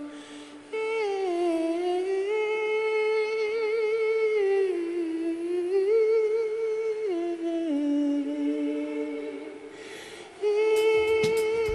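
A wordless high sung vocal, hummed and held on long wavering notes that step back and forth between two pitches, fading briefly after the start and again about ten seconds in. A few drum hits come in near the end.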